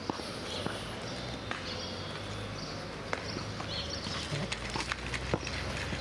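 Footsteps on pavement over street noise, with a low rumble of traffic that grows louder about four and a half seconds in.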